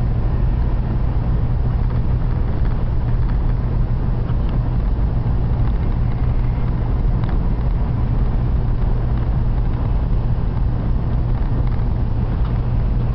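Steady low rumble of a Shinkansen bullet train running at speed, heard inside the passenger cabin, with a few faint ticks.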